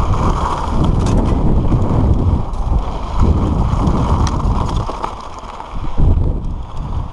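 Wind buffeting the microphone over the rumble and rattle of a mountain bike descending a rocky gravel trail, with tyres crunching over stones and the chain and frame clattering. It eases briefly about five seconds in, then a sharp jolt as the bike hits a bump.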